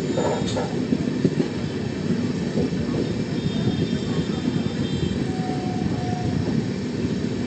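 LHB passenger coaches of a departing train rolling on the track, a steady, dense rumble of wheels on rail. A faint tone lasting about a second comes in a little past the middle.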